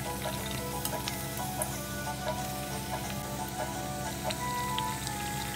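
Puri deep-frying in hot oil in a kadhai: a steady sizzle with scattered crackles as the oil bubbles around the dough. Background music plays over it.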